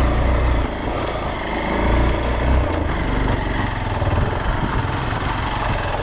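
Motorcycle engine running at low speed while the bike rides over a broken, stony dirt track, a steady rumble with rattling from the rough surface.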